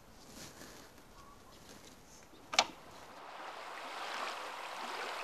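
A single sharp click about halfway through, then the steady rushing of river water, which swells and holds.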